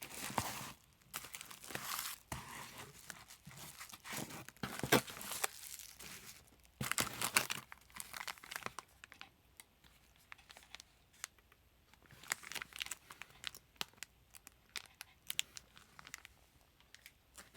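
Packaging being handled and unwrapped: irregular crinkling and tearing rustles with small clicks, loudest about five and seven seconds in, then lighter and sparser.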